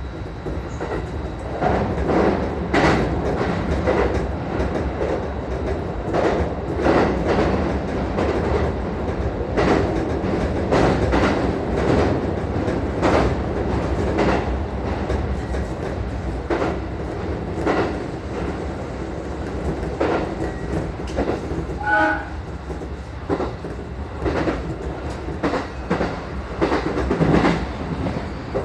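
Electric train running over a steel truss bridge, heard from inside the car behind the cab: wheels clack over rail joints again and again over a steady rumble. A brief tone sounds about 22 seconds in.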